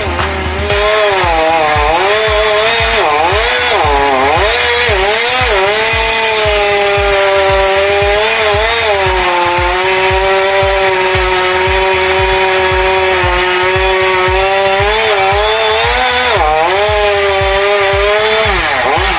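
Two-stroke chainsaw running while cutting, its pitch dipping and rising, then holding steady for several seconds before wavering again near the end. A steady beat of background music plays underneath.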